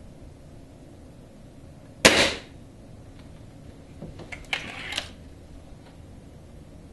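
Cometa Fusion 95 .22 spring-piston break-barrel air rifle firing once about two seconds in, a sharp crack with a short decay. A couple of seconds later come clicks and a rasping scrape as the barrel is broken open and the mainspring cocked.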